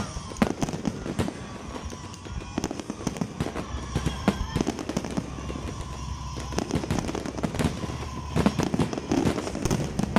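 Aerial fireworks display going off: a dense, irregular run of bangs and crackling shell bursts.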